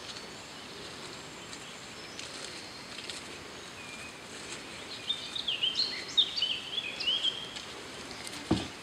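A small songbird singing a quick run of short high notes that step up and down in pitch, from about five seconds in, over a steady outdoor hiss. A short low thump near the end.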